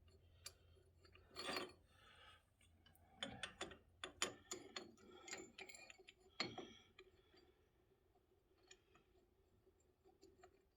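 Faint clicks and short clinking scrapes of small metal parts being handled and pushed into place by hand, loudest about a second and a half in, around four seconds in, and again near six and a half seconds, over a low steady hum.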